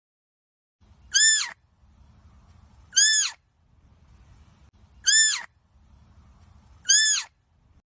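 An animal's short, high-pitched call that rises and falls, repeated four times about two seconds apart.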